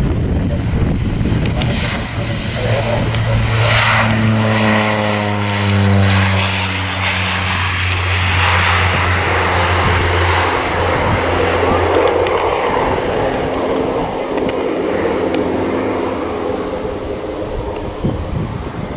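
North American OV-10B Bronco's twin Garrett T76 turboprops running at takeoff power as it rolls, lifts off and climbs away. The propeller drone drops in pitch as the aircraft passes, about four to seven seconds in.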